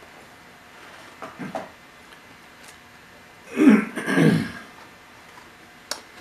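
A man clearing his throat twice in quick succession, about three and a half seconds in, over quiet room tone; a single sharp click follows near the end.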